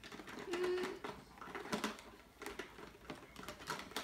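Small plastic pieces clicking and rustling as a child rummages through a toy doctor kit, with one brief low steady hum about half a second in.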